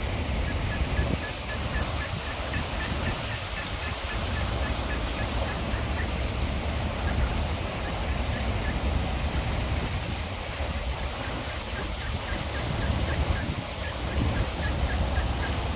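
Ducklings peeping in quick runs of short, high calls, over the steady rush of shallow stream water and a low rumble.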